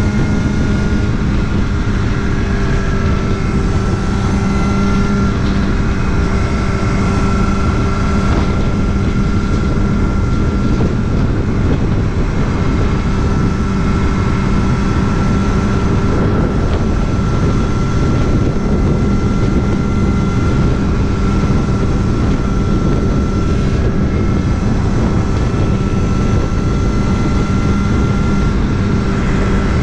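Kawasaki Ninja ZX-6R's inline-four engine running at a steady, nearly constant speed while riding, with the rush of wind noise underneath.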